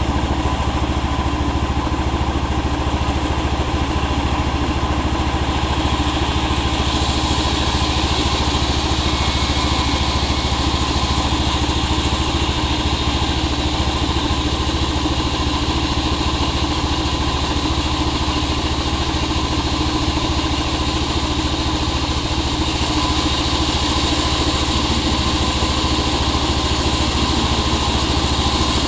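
Small engine of a power saw running steadily, its sound growing brighter about seven seconds in.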